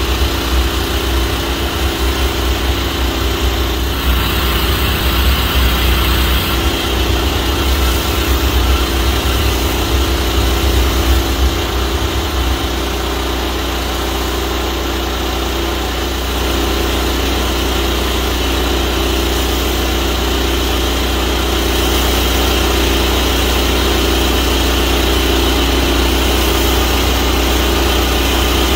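Pressure washer engine running steadily, with the hiss of water spraying from a rotary surface cleaner onto roof slates. An uneven low rumble settles into a steady hum about twelve seconds in.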